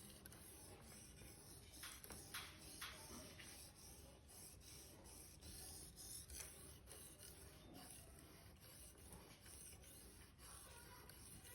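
Victorinox knife blade being drawn across a sharpener in faint, irregular scraping strokes.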